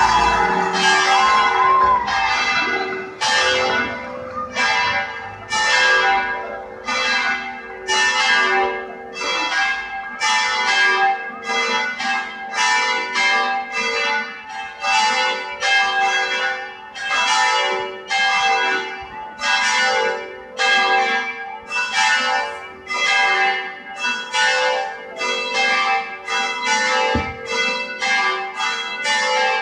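Church bells of Saint-Dominique church pealing for a wedding, strike after strike with each one ringing on into the next, at first about one a second and then quickening to about two a second.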